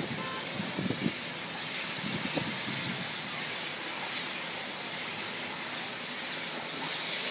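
Steady rushing, jet-like roar of a large fire burning through a gas station and auto repair shop, started by a car burning on a service-bay lift. The noise grows louder about seven seconds in.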